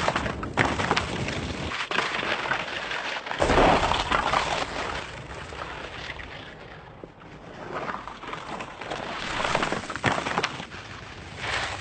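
Skis sliding and carving fast through loose sand: a rushing, scraping hiss that swells and fades with each turn, loudest about four seconds in.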